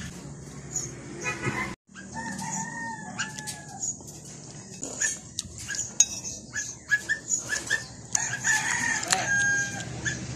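Rooster crowing twice, each crow a long bending call, with a few light clicks between the crows.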